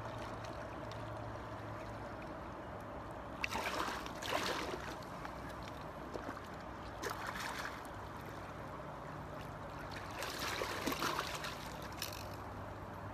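Hooked striped bass thrashing at the surface in shallow water, splashing in several short bursts: about three and a half, seven and eleven seconds in, with a last splash near the end.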